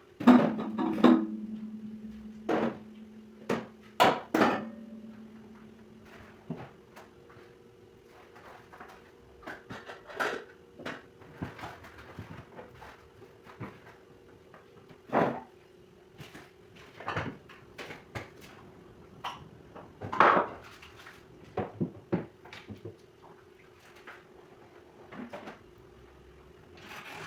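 Kitchen handling sounds: scattered knocks and clatter of dishes, pots and cupboard doors. A strike just after the start leaves a ringing tone that fades over several seconds, over a faint steady hum.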